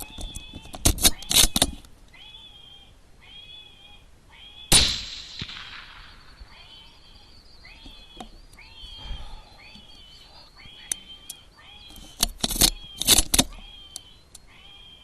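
FoxPro X360 electronic game caller playing a looping animal distress cry, a short pitched call repeating about once a second. A single rifle shot cracks about five seconds in and rings away. Bursts of sharp clicks come near the start and again near the end.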